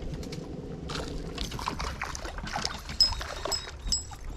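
Water splashing and sloshing with scrapes and clicks as a small sunfish is pulled from the water and handled beside the boat.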